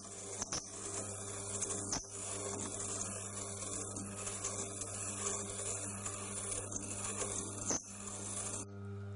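Steel twist drill bit held in a Tormek DBS-22 jig being ground on the turning stone of a Tormek water-cooled grinder, cutting its secondary point facets: a gritty scraping hiss over the machine's steady hum, with a few light knocks. The grinding stops suddenly near the end, leaving only the hum.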